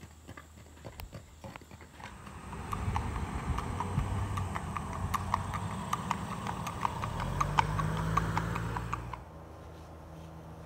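Spotted Saddle horse's hooves clip-clopping in a quick, even gait on a paved road: rapid sharp clicks, faint over the first couple of seconds and then loud, with a low rumble underneath. Near the end the hoofbeats stop and a quieter steady hum remains.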